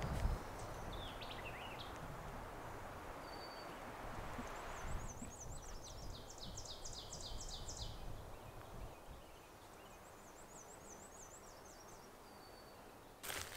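Songbirds singing in open woodland: a few short chirps and whistles, and twice a rapid run of repeated high notes, the first lasting about three seconds, over a low steady rumble of background noise. A short rustling crunch comes just before the end.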